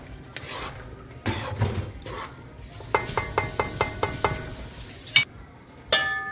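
A metal spoon stirring in a cooking pot, tapping against its side in a quick run of ringing clinks about six times a second, among other utensil-and-pot clatter. A sharp click follows, and a ringing clank comes near the end.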